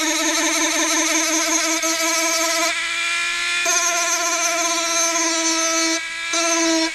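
Small handheld rotary tool with a sanding disc, running with a steady high whine as it sands the fibreglass leading edge of a model glider wing, grinding off an old superglue repair. The pitch shifts a little as the disc is pressed on. It dips briefly near the end, then stops.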